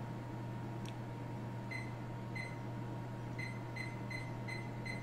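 A series of short, high beeps, about seven of them at uneven spacing, starting a little under two seconds in, over a steady low hum.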